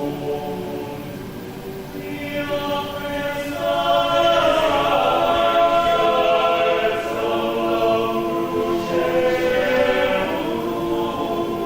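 Catholic choir singing in parts, holding sustained chords that swell louder about two seconds in.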